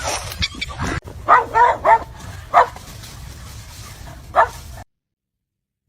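A dog barking in five short yipping barks: three in quick succession, then one more, and a last one a couple of seconds later. The sound cuts off into silence near the end.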